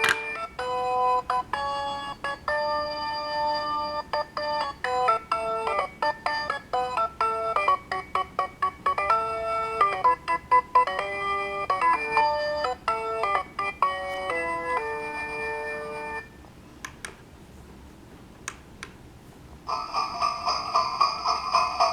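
Honeywell wireless doorbell chime playing holiday melodies from its plug-in sound card in electronic, ringtone-like notes. The first tune stops about 16 seconds in, a few sharp clicks follow, and another fuller tune starts near the end.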